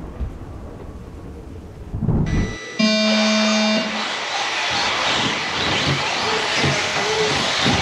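A low rumble, then about three seconds in a loud electronic start tone from the race timing system sounds for about a second. After it comes a steady hiss of electric 1/10-scale RC trucks racing off around the track, with faint short motor whines.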